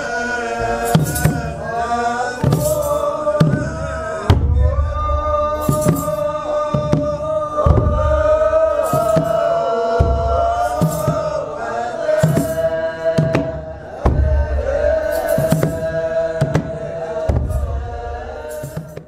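Outro music: a long-held melody line over a steady drum beat, fading out at the very end.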